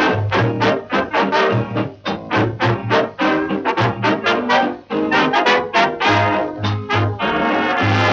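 Big-band dance orchestra playing an instrumental passage: short, punchy brass figures from trumpets and trombones in a steady swing rhythm over low bass notes. Toward the end the band moves into longer, fuller held chords.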